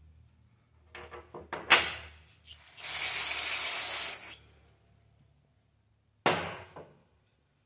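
Aerosol brake parts cleaner sprayed through its straw onto greasy steel sprockets to degrease them: a steady spray hiss of about a second and a half, with a shorter sudden burst near the end. A few sharp metal clanks come just before the spray, the loudest about two seconds in.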